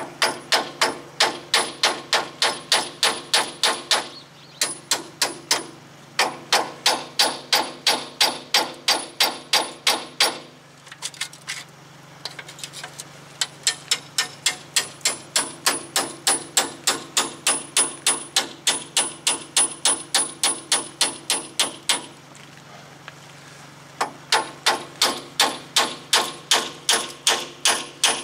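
Small sledgehammer striking a steel punch against a 2009 Toyota Tacoma's front steering knuckle: ringing metal-on-metal blows at about four a second, in runs of several seconds with short pauses. The blows drive the old front wheel bearing's inner part out of the knuckle, little by little, without a press.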